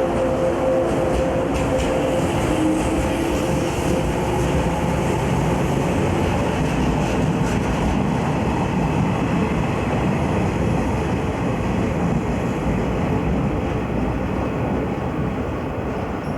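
Train running on the rails: a steady rumble with a few faint clicks, and a steady tone that fades out in the first few seconds.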